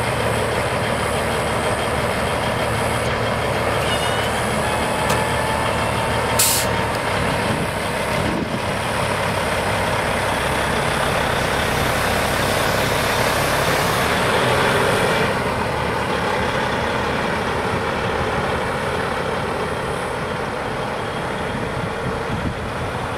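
Peterbilt semi truck's diesel engine running, with one short, sharp hiss of air about six seconds in as the air brakes release. The engine noise then swells as the truck pulls away with its trailer.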